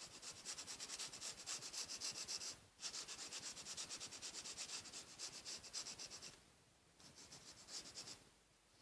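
Coloring tool scribbling quickly back and forth on paper, about six or seven strokes a second, in three spells with brief pauses between them.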